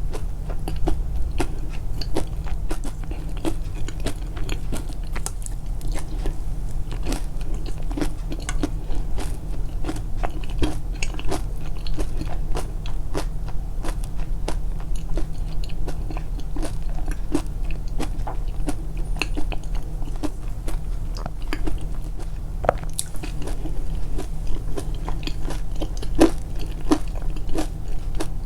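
Close-miked chewing of crunchy food: dense, irregular crunches and bites, over a steady low hum.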